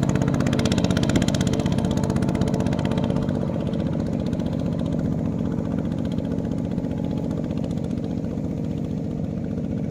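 Two-wheel walking tractor's single-cylinder diesel engine chugging in a fast, even beat as it hauls a trailer loaded with rice sacks. It grows quieter from about three seconds in as the tractor pulls away.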